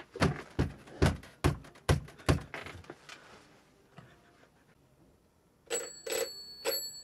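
Six sharp knocks in quick succession over the first couple of seconds, then near the end a telephone bell ringing in short strikes with clicks.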